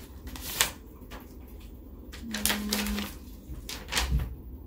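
Paper and packaging being handled: a few sharp clicks and some rustling, with a low thump about four seconds in.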